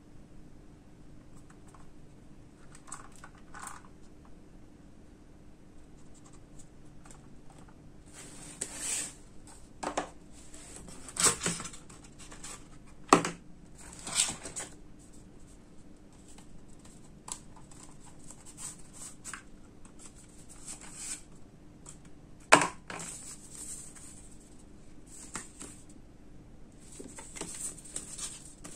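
Hands handling a drone's retail packaging: the box and its insert knocked and slid about, with a few sharp clicks and knocks, two of them loud, about 13 and 22 seconds in. Paper leaflets rustle near the end.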